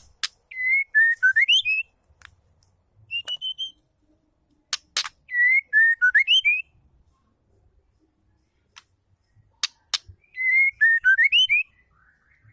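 Female white-rumped shama calling: a short whistled phrase of several notes that dip and then rise, repeated three times about five seconds apart, the second and third each opened by sharp clicking chips, with a short rising whistle about three seconds in.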